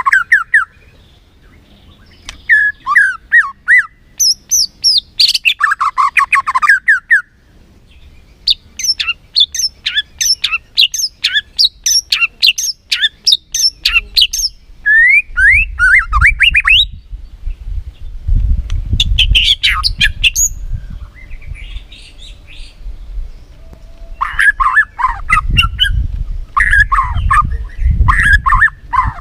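White-rumped shama singing a varied song in bursts of rapid trills, fast chattering runs and whistled phrases, with short pauses between them. A low rumble sits underneath twice in the second half.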